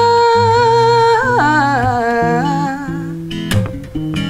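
A woman singing one long held note over strummed acoustic guitar; about a second in the note slides down to a lower one. Near the end the voice stops and the guitar goes on alone.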